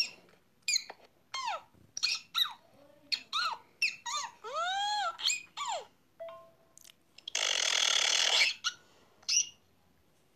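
Voice messages playing back on a phone, full of short, high squeaky calls that rise and fall in pitch, with a brief beep about six seconds in and a loud hissing burst for about a second just after it.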